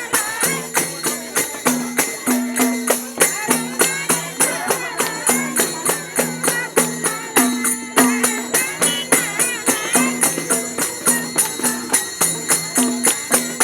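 Traditional folk-style music with a fast, steady percussion beat, a bending melody line and low held notes that step between a few pitches.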